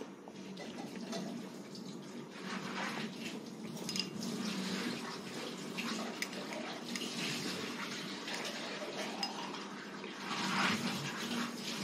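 Light clicks and scrapes of a toddler's plastic training chopsticks against a plastic plate, over a hiss that swells and fades.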